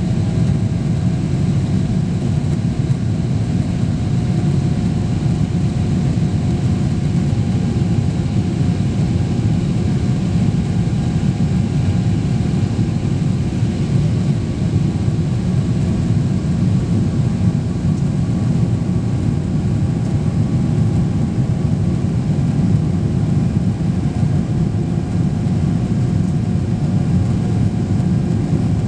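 Airliner engines and airflow heard inside the passenger cabin during the climb after takeoff: a steady, loud low rumble with a few faint steady tones above it.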